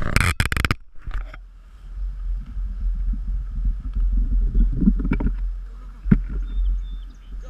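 Wind buffeting an action camera's microphone, a low rumble that swells and fades, with a loud crackling burst in the first second and a couple of sharp knocks later on.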